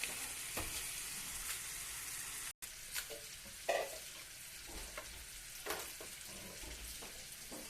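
Scallops and melting butter sizzling steadily in a hot frying pan, with a few light scrapes and taps of a utensil stirring. The sound cuts out for an instant about two and a half seconds in.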